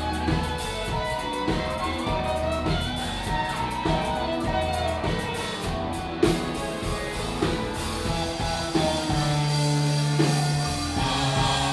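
Live country band playing a song: electric guitars, bass and drum kit, heard through the stage sound.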